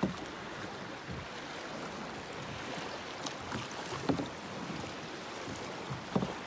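Sea water lapping in the shallows against a rocky shore, with wind on the microphone, and a few short knocks near the start, about four seconds in and near the end.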